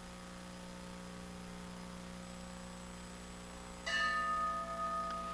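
A metal bell struck once with a mallet about four seconds in, ringing on with several clear steady tones that slowly fade. Before the strike there is only a steady low electrical hum.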